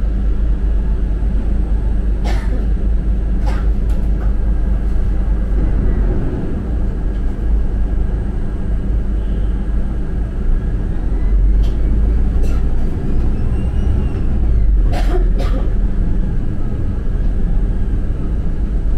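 Heavy low rumble inside a TransJakarta bus, from the engine and the road as the bus pulls away from a busway stop. A few sharp clicks or rattles come through, around two and three seconds in and again near fifteen seconds.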